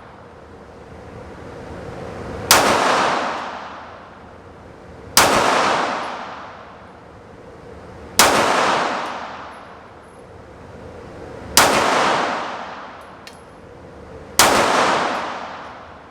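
Five single shots from a Sig Sauer P365XL 9mm pistol, slow and evenly paced about three seconds apart. Each sharp crack is followed by a long echo that dies away over about two seconds.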